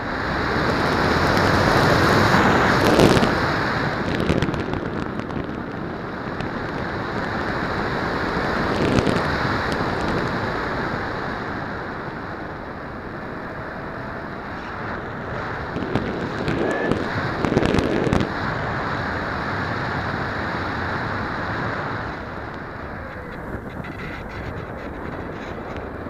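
Airflow rushing and buffeting over the onboard camera's microphone on a Multiplex Easy Star RC plane in flight, a dense rumbling rush that swells and eases, loudest in the first few seconds and dying down near the end.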